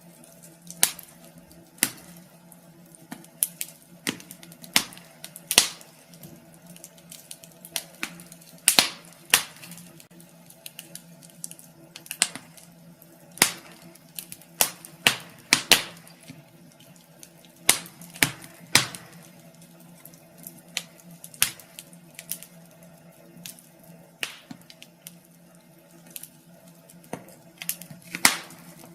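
Wood fire crackling in a fireplace: irregular sharp pops and snaps, some much louder than others, over a faint steady low hum.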